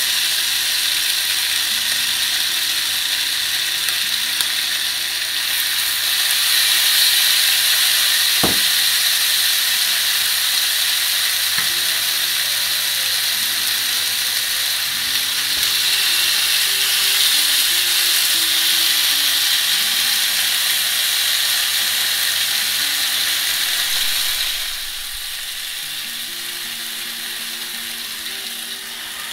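Marinated chicken leg quarters sizzling on the hot ribbed plates of a Tefal electric contact grill, a steady crackling hiss that grows fuller after a few seconds and turns quieter about three quarters of the way through.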